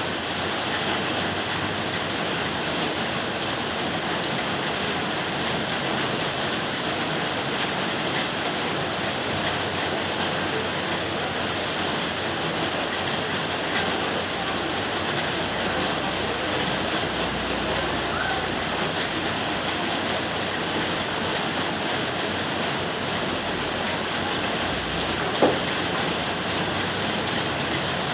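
Steady rain, an even unbroken hiss, with one sharp tap near the end.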